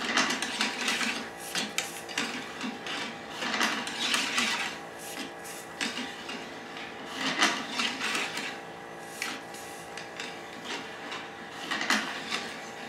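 A metal cleaning rod with a nylon .30 calibre bore brush being run back and forth through a Lee-Enfield No. 4 rifle's bore. Repeated rubbing, scraping strokes, with occasional light clicks.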